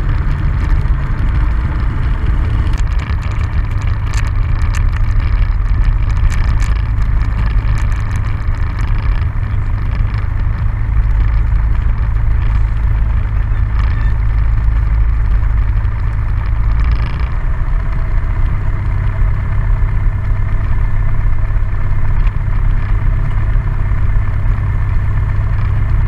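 Cessna 172's piston engine idling with the propeller turning as the plane taxis, a steady low drone heard inside the cabin.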